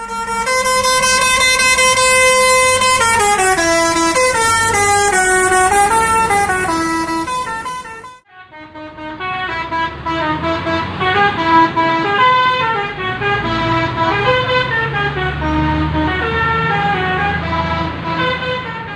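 Imitation (KW) 'basuri' telolet bus air horn playing a tune: one phrase of stepping, buzzy horn notes, a brief break about eight seconds in, then a second, longer phrase of notes rising and falling.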